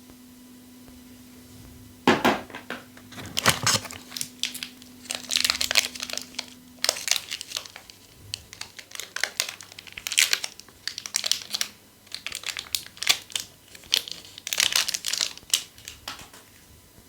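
Plastic packaging crinkling and tearing as it is handled during unboxing, in irregular crackly bursts that start about two seconds in and go on until near the end.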